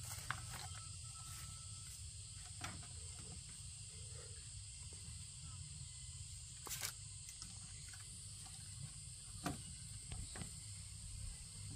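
Steady high-pitched insect chorus, with a few light knocks and clicks of bamboo pieces being handled and fitted, the clearest about seven seconds in.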